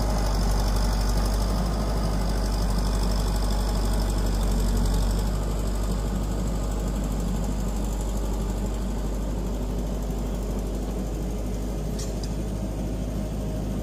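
Compact tractor engine running steadily while its front loader lifts a log from the water with a grapple. It gets slightly quieter about five seconds in.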